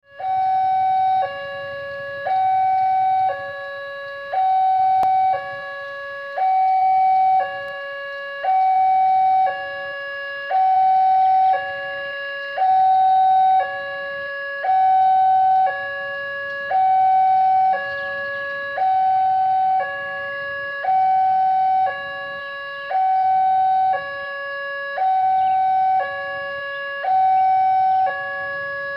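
Electronic two-tone warning alarm sounding a steady high–low pattern, each tone held about a second, the higher tone louder, repeating without a break.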